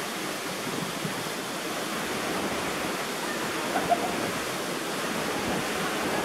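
Waterfall rushing steadily, an even roar of falling water, with a couple of brief high chirps about four seconds in.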